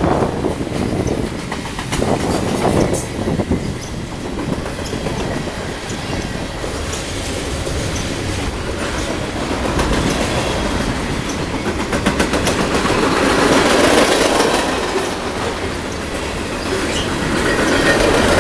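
Freight train cars rolling past at speed: a steady rumble of wheels on rail with a rapid clickety-clack of wheels over rail joints, growing a little louder partway through and again near the end.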